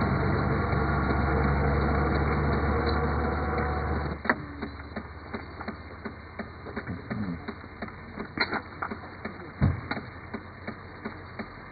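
A car engine idling steadily, cut off abruptly about four seconds in. Then a run of sharp, irregular typewriter keystrokes clacking as a title is typed out.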